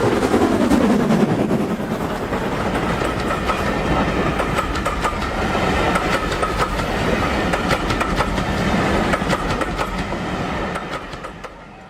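OO gauge model train running on the layout's track: its wheels click rapidly over the rail joints under a steady motor whine. A lower tone falls in pitch over the first couple of seconds as the train passes, and the sound fades away near the end.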